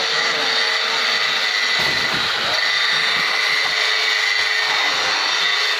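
Oxy-fuel gas cutting torch hissing steadily as its flame and oxygen jet cut into a block of metal, the hiss growing fuller about two seconds in.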